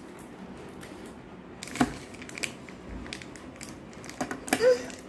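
Plastic Oreo packet crinkling and crackling as it is cut open with scissors, a few sharp crackles with the loudest about two seconds in.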